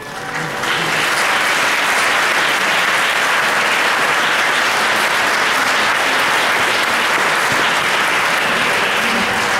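Audience applauding: the clapping swells within the first second as the choir's closing chord ends, then holds steady and dense.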